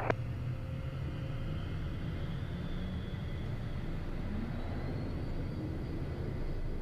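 Steady low rumble of a Beechcraft Premier I business jet's twin turbofan engines and airflow, heard from inside the cockpit.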